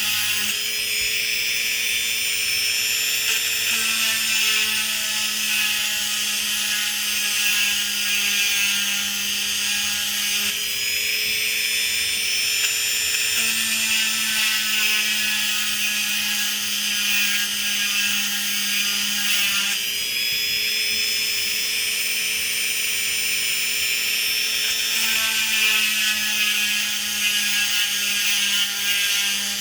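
Chicago Electric rotary tool with a diamond bit grinding a hole into a citrine crystal under water: a steady motor whine over a hissy grinding noise. The whine's pitch sags slowly and steps back up a few times as the bit is pressed in and eased off.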